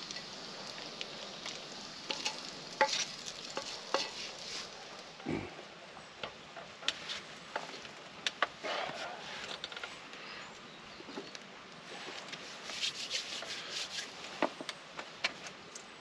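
A fork clinking and scraping against metal frying pans as bacon is lifted out and laid on toast, over a faint sizzle of frying. There are many short sharp taps and one soft low thump about five seconds in.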